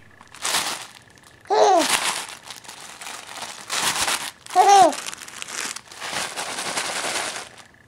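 A baby making two short cooing squeals, each rising then falling in pitch, between several bursts of crinkly rustling.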